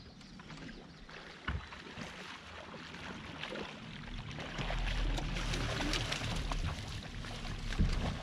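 Water splashing as a hooked striped bass thrashes at the surface beside a boat, getting louder about halfway through, over a low rumble.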